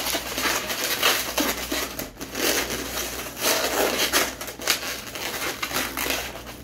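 Latex twisting balloons rubbing and crinkling against each other and the hands as they are twisted and locked together, an irregular, unbroken handling noise.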